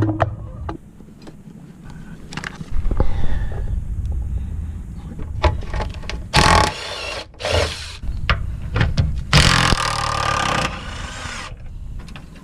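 Hand-tool work on a car: scattered clicks and knocks with a low rumble underneath, broken by three short rasping bursts, the longest about a second long near the end.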